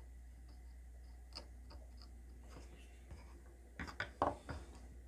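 Light handling noise from a super glue bottle and a bamboo chopstick cord reel being worked on a board: a few faint ticks, then a quick run of sharp clicks and taps about four seconds in, over a low steady hum.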